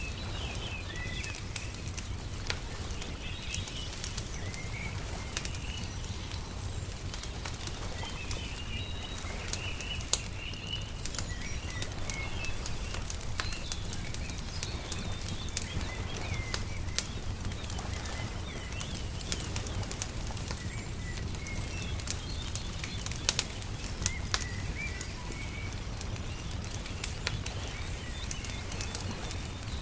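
Wood fire crackling with frequent sharp pops, over small birds chirping and a low steady rumble.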